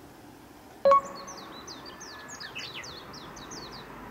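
A short, bright ding about a second in, then small birds chirping: many quick, high, falling chirps in rapid succession that carry on to the end.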